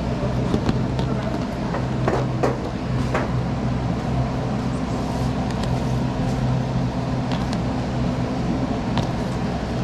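Steady low mechanical hum with scattered light clicks and knocks.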